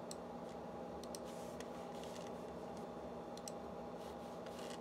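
A computer mouse button clicking several times, light sharp clicks with some in quick pairs, over a steady low electrical hum.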